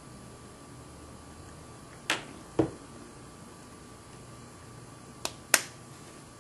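Handling of a small glass specimen vial and its snap cap on a benchtop: two pairs of short, sharp clicks, about two seconds in and about five seconds in, over faint room tone.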